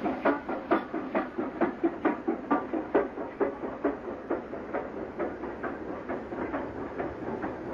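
LMS Stanier Black 5 two-cylinder steam locomotive running light engine, with a steady rhythmic beat of about four to the second that grows fainter in the last few seconds.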